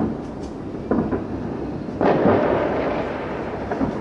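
Aerial firework shells bursting: several sudden booms, the loudest about halfway through, trailing off in a long rumble.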